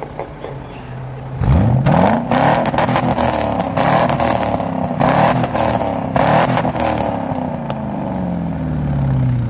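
1998 Lincoln Mark VIII LSC's 4.6-litre DOHC V8 being revved through Magnaflow mufflers with the resonator removed. It idles, then about a second and a half in the throttle is snapped open. Several more blips follow, the pitch rising and falling with each, before settling back toward idle near the end.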